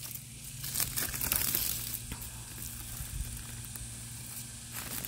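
Dry, withered squash stems and leaves rustling and crackling as they are handled, with small scattered crackles, over a faint steady low hum.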